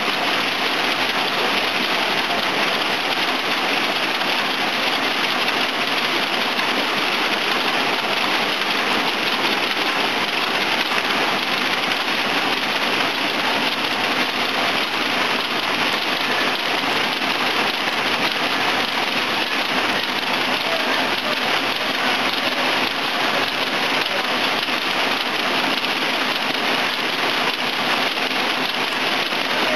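Automatic through-hole component insertion machine for PCB assembly running: a steady, dense rattling hiss that stays the same level throughout.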